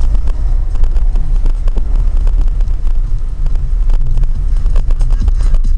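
Blizzard wind buffeting the microphone: a loud, constant low rumble with crackling gusts.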